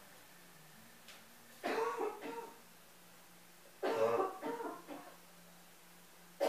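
A person coughing in two bouts about two seconds apart, each a quick run of several coughs lasting about a second.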